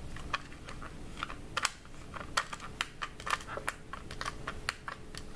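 Irregular light plastic clicks from a Maxell compact cassette as its reel hub is turned by finger, winding the repaired tape back onto the spool.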